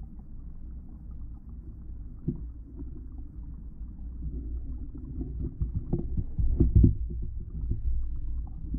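Muffled low water rumble heard through a GoPro's waterproof housing resting underwater, with a dull knock a couple of seconds in and a cluster of louder dull thuds and knocks about six to seven seconds in.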